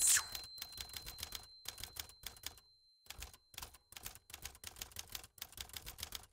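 Typewriter sound effect: rapid, uneven mechanical key clacks with a brief pause about halfway through, opening with a short whoosh.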